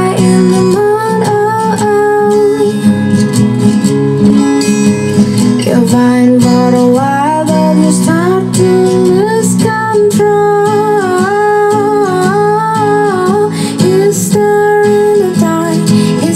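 Recorded song played back loud through a power amplifier and column speaker for a vocals sound check: acoustic guitar accompaniment with a sustained, gliding sung melody.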